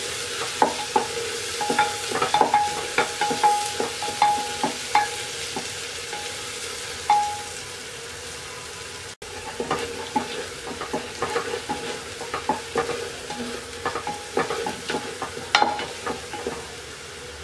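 Wooden spatula stirring chopped onion, garlic and green chillies frying in mustard oil in a pressure cooker: a steady sizzle under irregular knocks and scrapes of the spatula against the pot.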